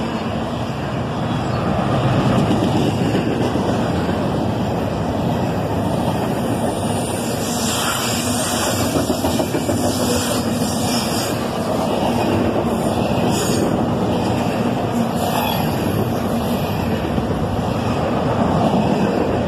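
Intermodal freight train rolling past at speed, a steady rumble and rush of steel wheels on the rails, with a few sharper clacks now and then.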